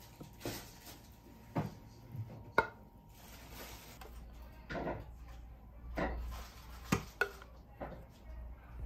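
A wooden spoon knocking and scraping against a bowl as sauce is spooned over rice: irregular light clinks and clatter, about one a second.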